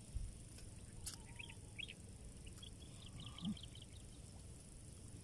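Faint bird chirps: a few scattered short calls, then a quick run of them about three seconds in. A couple of soft clicks sound early on, over a low rumble of handling noise.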